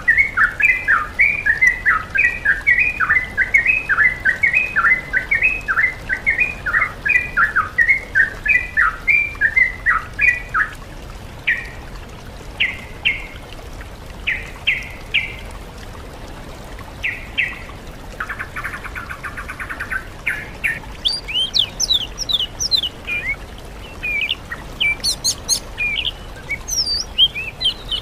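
Songbird song from a masteran training track mixing yellow-vented bulbul, oriental magpie-robin and greater green leafbird. It opens with a fast run of repeated chirping notes, about two a second, followed by scattered single notes and a short buzzy rattle, then high whistles and chips near the end.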